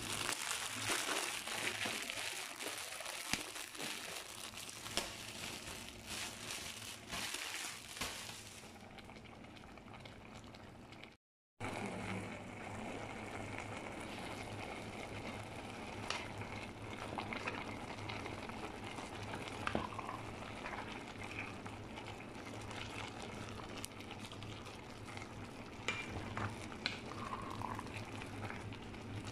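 A plastic bag of pancit canton noodles crinkling as it is handled for about the first nine seconds. After a cut about eleven seconds in, a pot of pansit simmers with a steady bubbling hiss over a low hum, and a few sharp clicks now and then.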